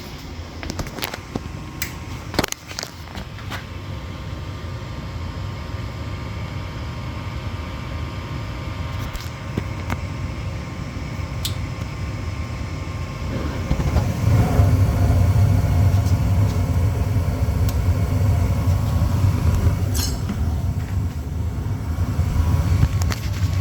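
Trane XR80 gas furnace in its startup sequence: a steady motor hum that builds slowly and steps up clearly about 14 seconds in, with a few sharp clicks along the way.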